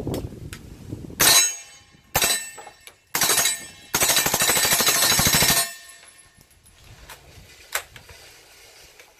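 Suppressed automatic fire from a Dakota Tactical D54RN, an MP5-pattern 9mm submachine gun fitted with a SilencerCo Omega 9K suppressor. A short burst comes about a second in and a very brief one near two seconds, then a burst about three seconds in and a longer burst of rapid shots lasting under two seconds. A few faint clicks follow near the end.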